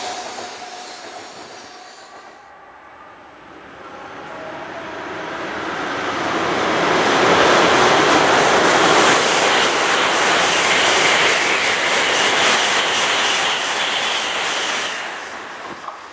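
Shinkansen train noise: an E2-series train fades away over the first few seconds. Then a coupled E4-series MAX double-decker and E3-series Tsubasa approach and pass through the station at speed, a rising rush of air and wheel noise that holds loud for several seconds and drops off sharply near the end.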